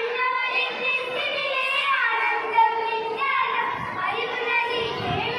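A group of girls singing together into a microphone, with held, sustained notes.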